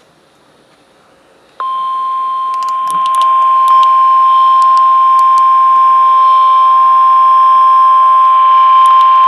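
A weather radio's speaker sounds the NOAA Weather Radio 1050 Hz warning alarm tone: one steady, unbroken beep. It starts about a second and a half in, steps louder about three seconds in, and signals that a warning broadcast follows.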